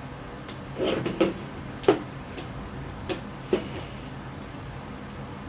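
A handful of short knocks and clicks, the loudest about two seconds in, as a toy package is handled and worked open.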